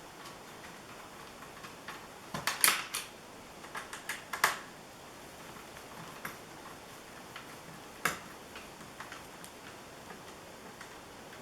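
Scattered light clicks and taps of a bolt and metal mounting plate being handled and worked into place inside a TV's chassis: a few in quick succession a little over two seconds in, then single clicks about four and a half and eight seconds in.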